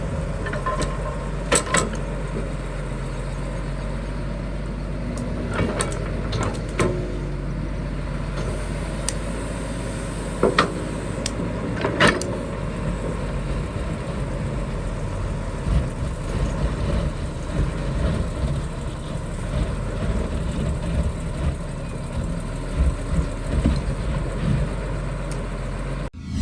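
Excavator's engine running steadily, with several sharp metallic knocks or clanks over it.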